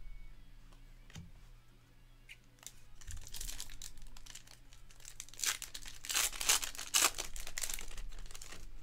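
Foil wrapper of a 2023 Panini Elite Extra Edition Baseball card pack being torn open and crinkled, starting about three seconds in, after a few light clicks of card handling.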